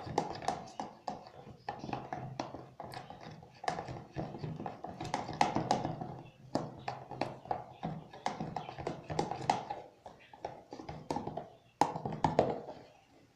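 A spoon stirring glue and borax water in a bowl, with irregular rapid clicks and taps against the bowl as the mixture starts to set into slime.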